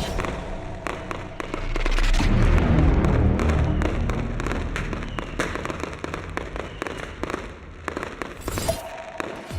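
New Year's Eve fireworks going off: a dense run of sharp cracks and bangs, heaviest about two to three seconds in.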